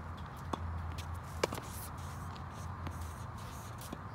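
Tennis rally: two sharp tennis ball impacts about a second apart, over a steady low hum.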